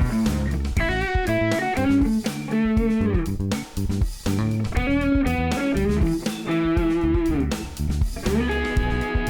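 Background music led by electric guitar over bass and drums, with bending guitar notes.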